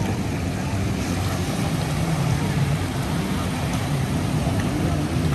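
A boat's engine running steadily: a low drone whose pitch wavers slowly up and down, under a steady hiss of water and wind.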